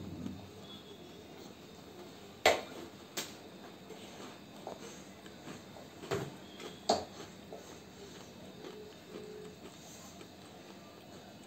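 A handful of sharp knocks and clacks from a spin mop's metal handle and plastic head striking a tiled floor as a toddler pushes it about. The loudest knock comes a couple of seconds in, and a few more follow over the next several seconds.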